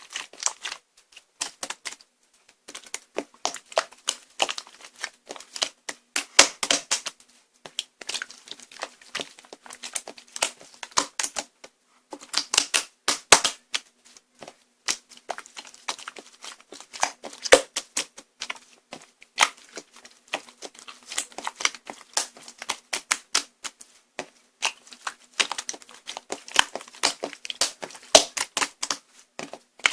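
Slime being pressed and squished by hand, making a rapid, irregular run of small clicks and pops with a few brief pauses.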